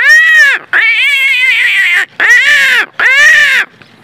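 A man imitating a crow's caw with his voice to call crows to him: four loud, drawn-out "kaa" calls in quick succession, the second one longer than the others.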